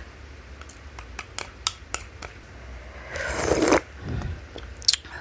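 Wooden spoon scraping and tapping sambal out of a small plastic cup onto a bowl of bakso, a string of sharp clicks. About three seconds in comes a louder, longer rushing noise, with a last click near the end.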